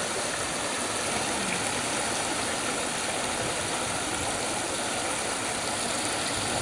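Water of a bowl fountain spilling over its rim in a sheet and splashing into the pool below: a steady rush of falling water.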